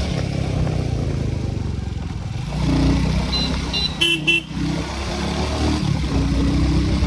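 Royal Enfield Bullet 350 motorcycle engine running steadily while riding, with a few short horn toots a little past the middle.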